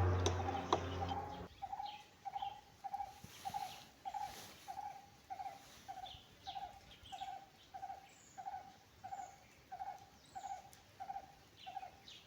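A bird repeating one short, low note about one and a half times a second, with other birds chirping faintly higher up. It follows a louder sound with steady tones that cuts off about a second and a half in.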